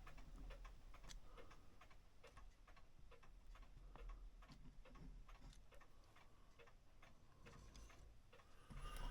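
Faint, irregular small clicks and ticks, several a second, over a low steady hum.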